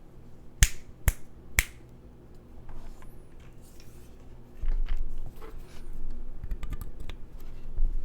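Mechanical keyboard with linear MX Black switches on an aluminium plate being pressed: three sharp, loud clicks about half a second apart, then scattered quieter key clacks and low thuds, with a quick run of keystrokes near the end.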